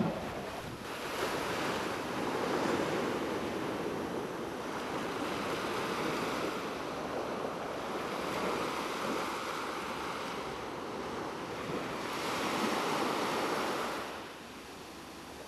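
Small sea waves washing on a rocky breakwater and a shingle beach: a steady surf hiss that swells and eases. It becomes noticeably quieter near the end.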